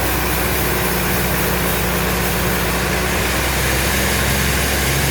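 Sawmill machinery running steadily: a constant low engine hum with a broad, even noise over it.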